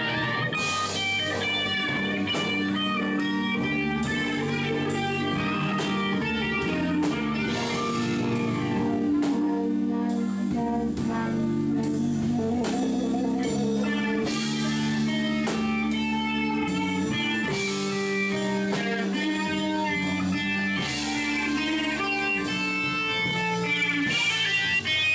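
Live rock band playing: electric guitars, one a white Stratocaster-style guitar, over bass and a drum kit, with a steady beat.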